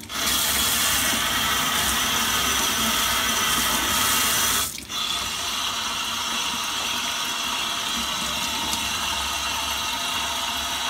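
Cold water running from a kitchen tap into a stainless steel sink, splashing over a piece of raw pork that is being rinsed and turned by hand under the stream. The flow breaks off for a moment a little under five seconds in.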